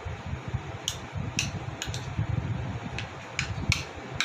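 A metal spoon stirring broken chocolate and butter in a small bowl, clinking against the bowl about seven times at uneven intervals over a low steady hum.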